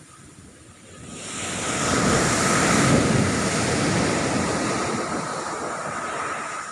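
Ocean wave breaking and washing up the beach: the surf noise swells about a second in, peaks, then slowly fades away near the end.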